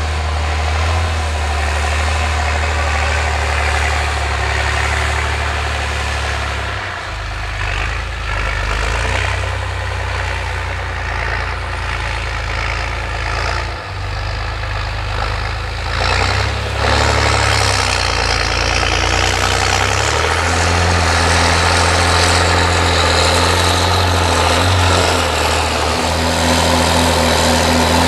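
John Deere 8400 tractor's six-cylinder diesel engine running hard under heavy load, pulling a seven-shank Alpego Cracker ripper deep through compacted soil. The engine labours to pull it. Its low engine note runs steadily and shifts in pitch a few times.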